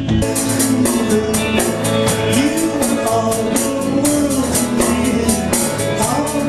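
Live rock-and-roll band playing: electric guitars and drums with a singing voice, at a steady beat.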